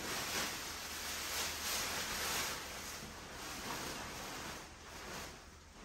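Rustling of the green fabric cover and plastic wrapping around a rolled artificial grass wall panel as it is lifted and handled, dying down near the end.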